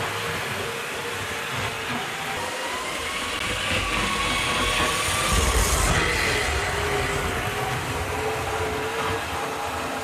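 Tri-ang Blue Pullman model train running on the layout: a steady wavering motor whine over wheels rumbling and clicking on the rails, swelling about five to six seconds in as it passes close.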